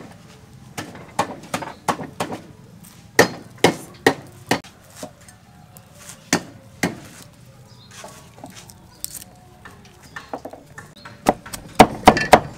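Scattered light knocks and clicks as garlic cloves are peeled by hand over a wooden chopping board. About a second before the end, a cleaver starts chopping the garlic on the wooden board in fast, loud, regular strokes, about six a second.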